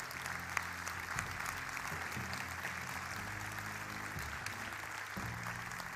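Audience applauding steadily, with soft background music underneath.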